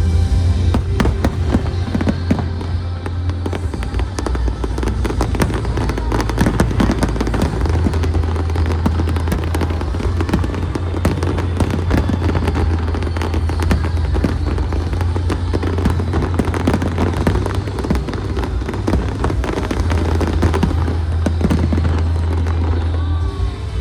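Aerial fireworks bursting and crackling in rapid, dense volleys of sharp reports, over loud show music with a heavy bass.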